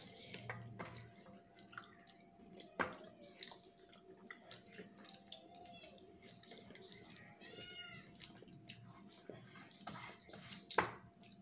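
Fingers working rice and fish on a steel plate: soft squelches and small clicks and clinks against the metal, with the loudest clink about eleven seconds in. A cat meows faintly about seven to eight seconds in.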